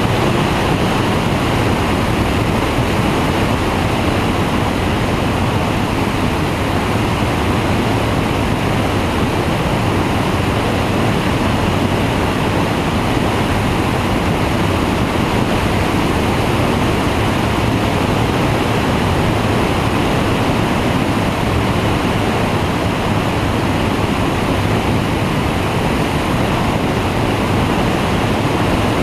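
Steady rush of wind over a microphone mounted on the wing of a flexwing microlight trike in flight, with the trike's engine and propeller droning low underneath.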